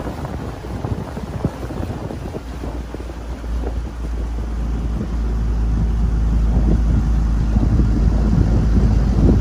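Wind rushing over the microphone of a small aluminium jon boat under way on choppy water, with irregular slaps of water against the hull. The wind rumble grows louder about halfway through.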